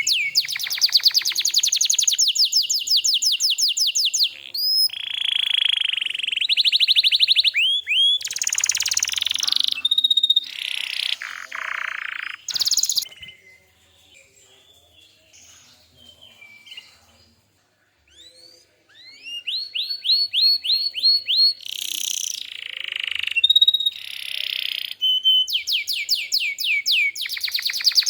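Domestic canary singing in fast trills and rolls of quickly repeated rising notes, falling silent for several seconds about halfway before the song starts again.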